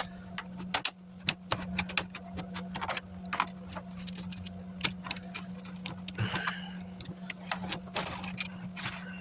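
Irregular sharp plastic clicks and snaps as a laptop screen bezel is pried off and handled, over a steady low hum.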